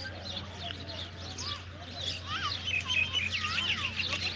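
Small birds chirping and twittering busily, with a few arching whistled calls in the middle, over a steady low hum.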